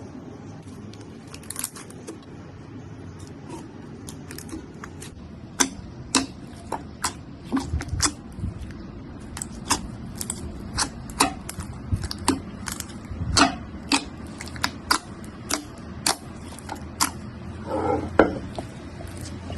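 Slime being pressed and squeezed by hand, giving sharp irregular pops and crackles, about one to two a second, from a few seconds in. There is a longer squelch near the end and a low steady hum behind.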